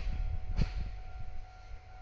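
KiHa 40-series diesel railcars rolling slowly behind a shunting switcher: a low rumble with two wheel clacks about half a second apart, fading away in the second half.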